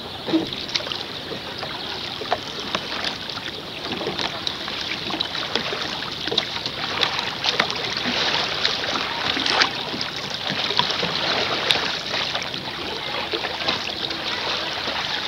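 Water rushing and splashing along the hull of a moving canoe, with many irregular sharp splashes and drips close by.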